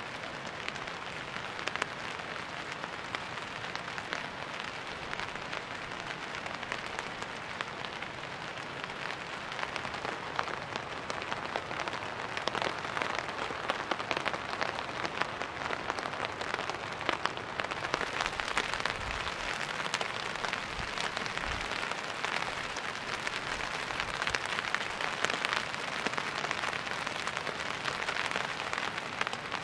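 Rain falling steadily, a dense patter of countless drops on hard surfaces, growing a little heavier about two-thirds of the way through, with a few low thumps.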